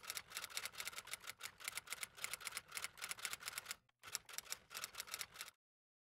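iPhone on-screen keyboard clicking rapidly as text is typed, several key clicks a second. There is a brief break at about four seconds, and the clicks stop abruptly about a second and a half before the end.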